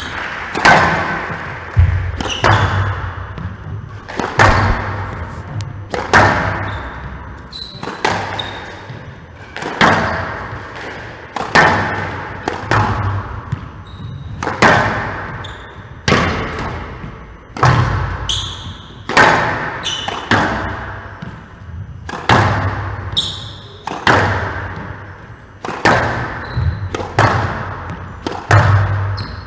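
Squash ball being hit with a racket and smacking off the court walls during the players' warm-up, a sharp hit about every one and a half to two seconds, each ringing in the large hall's echo.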